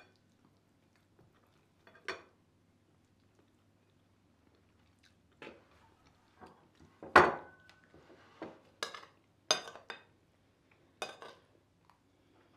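Metal spoons clinking and scraping against a metal serving pan and ceramic plates as pilaf is dished out: about eight separate clinks, the loudest about seven seconds in with a short ring.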